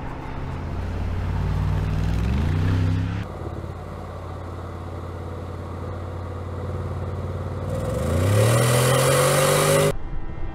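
Mercedes-Benz G-Class engine accelerating in two edited shots: its pitch climbs about two seconds in and breaks off at a cut, runs steadier for a while, then climbs again, louder, near the end before cutting off suddenly.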